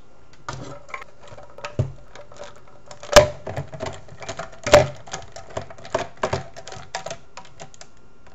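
Crosman 760 PumpMaster air rifle's plastic stock being fitted and its stock screw driven in with a screwdriver: irregular clicks and rattles, with two louder knocks about three and four and a half seconds in.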